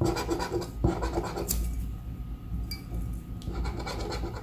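Scratch-off lottery ticket being scraped with a scratcher tool: quick rasping strokes across the latex coating, easing off in the middle, then picking up again near the end.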